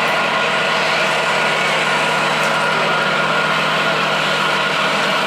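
Steady idling engine sound, as from a radio-controlled scale truck's engine sound unit, holding one even hum without revving.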